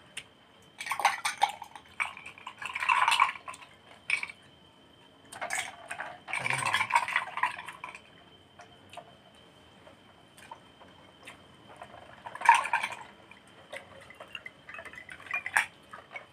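A drink poured from a plastic pitcher into a glass, the longest pour about two seconds, amid scattered clinks and knocks of glasses and dishes.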